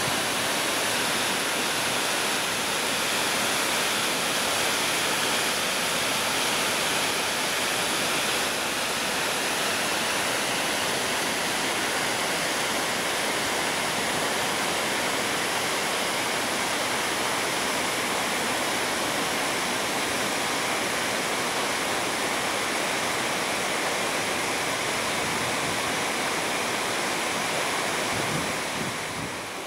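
Steady rush of water running in a partly drained canal lock chamber, an even hiss-like roar without pauses.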